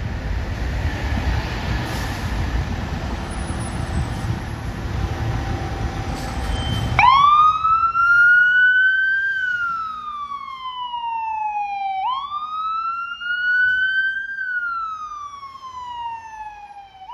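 Heavy low rumble of a fire engine's diesel pulling out. About seven seconds in its siren starts a slow wail, rising and falling twice, each sweep lasting about five seconds.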